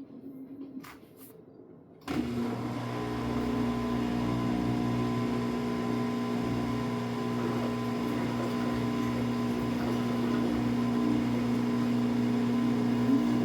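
Samsung AddWash front-loading washing machine starting up with a steady mechanical hum about two seconds in, after a couple of faint clicks; the machine is moving toward its spin stage.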